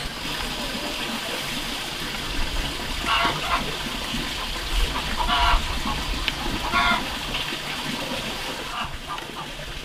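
Chickens clucking: three short calls a second or two apart, with a few fainter ones near the end, over a steady background hiss.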